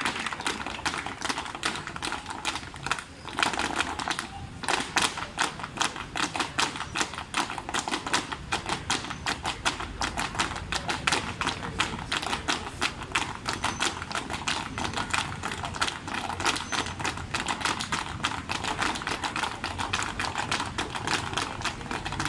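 Flamenco footwork (zapateado): many dancers' heeled shoes striking the pavement together in a rapid, steady stream of sharp taps, with a short break about three seconds in.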